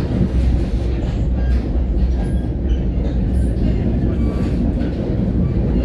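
NJ Transit commuter train running along the track: a steady, loud rumble of wheels on rail.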